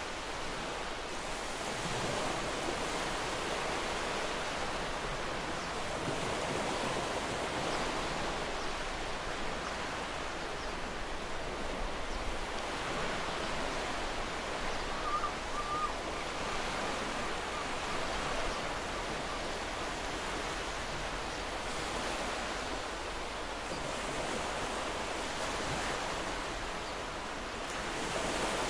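Sea surf washing ashore: a steady rushing noise that swells and eases every few seconds.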